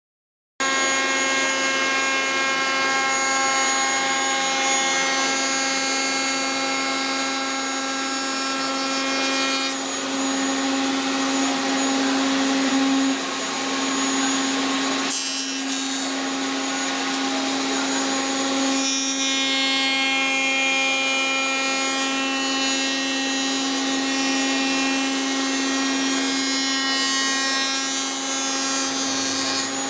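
Router in a router table running steadily with a high, even whine, its bit milling wood along a template. The sound starts abruptly about half a second in and dips briefly about halfway through.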